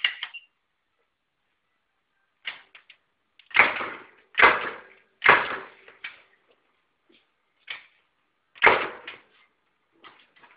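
Three-position pneumatic press for setting snaps and eyelets, stroking: about five sharp strokes, each a knock followed by a short hiss of air, with three in quick succession around four to six seconds in and another near nine seconds. Lighter clicks fall between the strokes.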